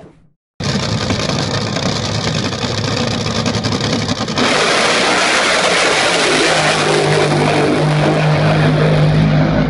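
Top fuel hydroplane drag boat's supercharged nitromethane engine at full throttle on its run, a loud, dense blast that starts after a brief gap about half a second in. It gets louder and heavier about four and a half seconds in as the boat comes past, with a low steady engine note showing through from about six seconds.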